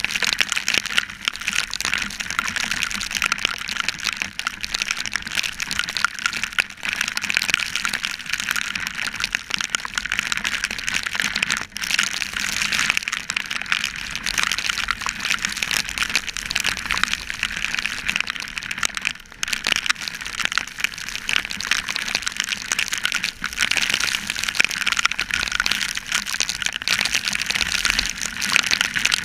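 Steady rushing hiss of heavy rain and riding wind on a motorcycle-mounted GoPro in its waterproof housing, with spray off the wet road, while the bike rides through a downpour. The noise dips briefly twice.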